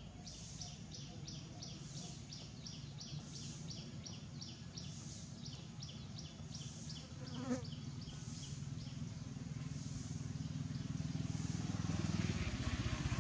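Insects chirping in a fast, even pulse of about five a second, with a slower swelling buzz over it, until about two-thirds of the way through. Beneath them runs a low steady rumble that grows louder near the end, and there is a single short sharp sound about halfway through.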